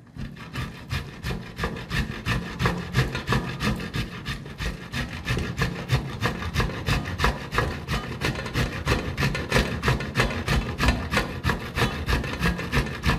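Fresh coconut meat rubbed by hand down a stainless steel box grater standing in a metal bowl: a rasping scrape on each stroke, in a steady rhythm of about two to three strokes a second.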